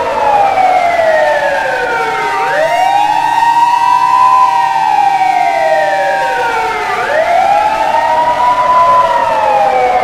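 Siren wailing in a slow rise and fall: the pitch sinks for about two seconds, sweeps quickly back up, holds briefly and sinks again, twice, over a steady tone underneath.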